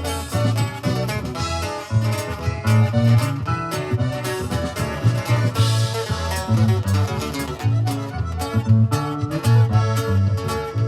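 Instrumental band introduction with guitar over a steady bass beat.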